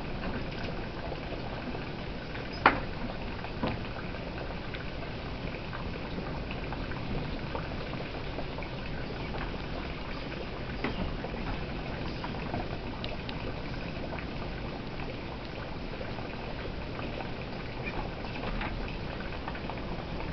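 Steady running-water noise with scattered small clicks and taps, one sharper click about two and a half seconds in.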